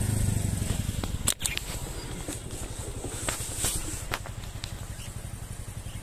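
Motorcycle engine running while being ridden along a rough dirt track, a little louder in the first second. There is a sharp knock about a second in and a few lighter clicks and knocks around the middle.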